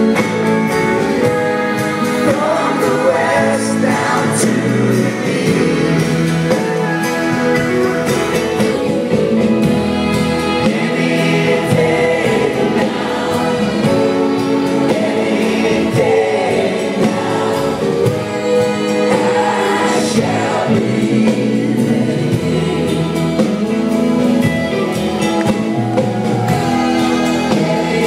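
Live band music with many voices singing together in a gospel-style chorus.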